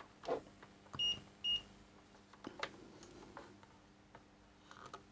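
Fluke digital multimeter giving two short high beeps about half a second apart while its test probes are held on the circuit board's solder joints during a short check, with a few light clicks and knocks from the probes being handled.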